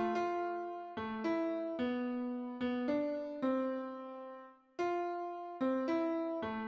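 Solo piano playing a slow melody over chords, each note struck and ringing away. The sound drops out briefly about four and a half seconds in before the next chord.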